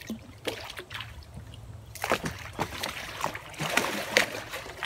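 Pond water splashing and sloshing around a floating wheelbarrow tub as it is pushed along with a stick and rocks under the rider's weight. The splashes are scattered at first and come thick and fast from about two seconds in.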